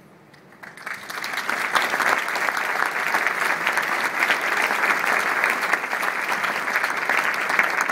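Audience applauding, starting about a second in and continuing steadily.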